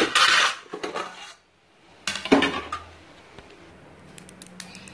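Dishes clattering as a plate and kitchenware are handled: a loud clatter with a few clinks after it, a second clatter about two seconds later, then a few light clinks near the end.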